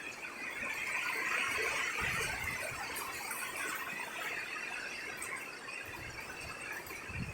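Heavy rain with strong wind: a steady hiss of rain, with low rumbles of wind gusting on the microphone about two seconds in and again near the end.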